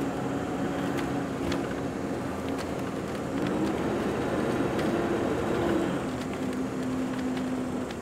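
A motor vehicle's engine and tyre noise, heard from inside the cabin while driving. The engine note climbs about midway through, then settles into a steady hum, with occasional light rattles.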